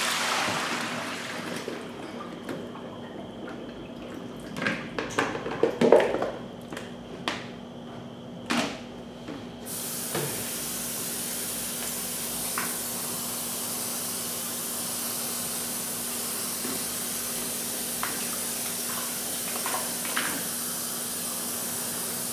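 Knocks and clatter of things handled at a kitchen sink, the loudest about six seconds in, then a kitchen faucet turned on about ten seconds in and running steadily.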